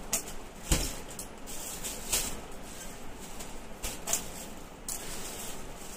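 Rustling and a handful of short, sharp knocks from garments being handled and laid out, over a low background hiss.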